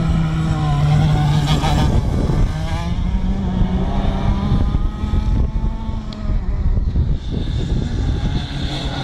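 Racing go-kart engines buzzing around the track, their pitch rising and falling as the karts come off and on the throttle.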